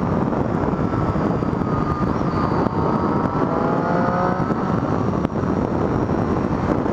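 Triumph Street Triple R's 675 cc inline-three engine running under heavy wind rush at riding speed, its pitch climbing for a stretch about three seconds in as the bike pulls.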